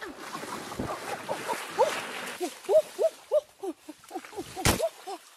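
Many short animal calls overlapping, several a second, each rising and then falling in pitch, with a sharp snap or knock near the end.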